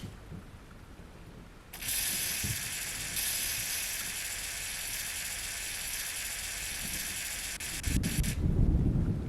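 A steady, high hiss that starts abruptly about two seconds in and stops abruptly about a second before the end, with a loud low rumbling coming in just before it stops.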